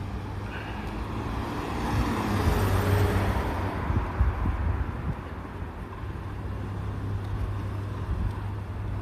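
A car passing along the street, its noise swelling to a peak about three seconds in and then fading, over a steady low rumble.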